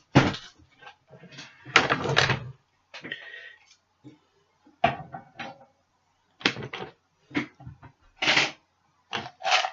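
Irregular knocks, clunks and brief rustling as boxed cubes and other objects are picked up, shifted and set down.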